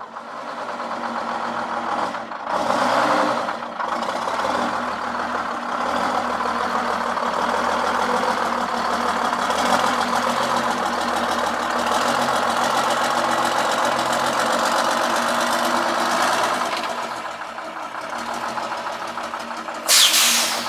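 The turbocharged Detroit Diesel 6-71, an inline-six two-stroke diesel, in a 1963 GMC Crackerbox cabover, idling steadily. It swells louder for about a second some two and a half seconds in. Near the end there is a short, loud burst of hissing noise.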